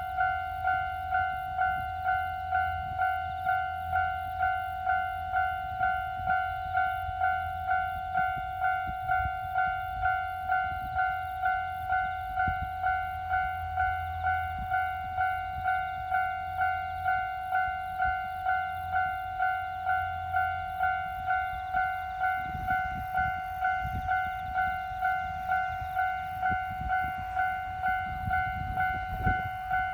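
Japanese level-crossing warning bell ringing, an even electronic ding about one and a half times a second, over a low rumble. In the last several seconds a train's heavier rumble and knocking come through under the bell.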